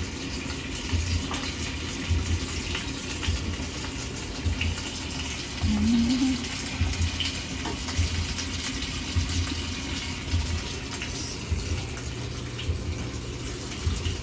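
Water gushing steadily into the tub of a Whirlpool top-loading washing machine as it fills, with a low pulse repeating about every two-thirds of a second underneath.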